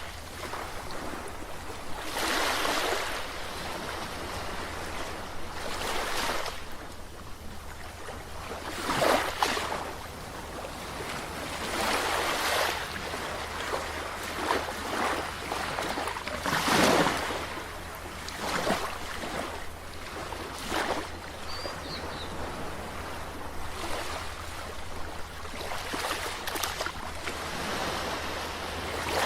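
Ocean waves breaking and washing ashore, one surge of surf every two to three seconds. The biggest wash comes about 17 seconds in.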